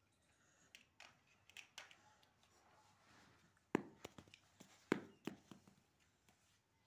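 Large plastic toy building blocks and a block-built toy car clicking and knocking as a toddler handles them, with two sharper clacks about a second apart near the middle and lighter clicks around them.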